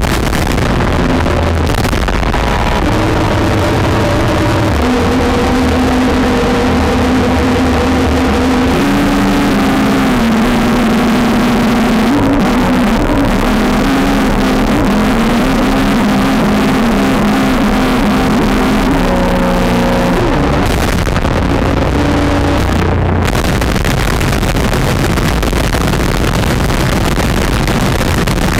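Harsh noise wall: a dense, loud, unbroken wall of distorted electric guitar noise. From about five seconds in, a few held droning pitches stand out of the noise and shift in steps, sinking back into it near twenty seconds.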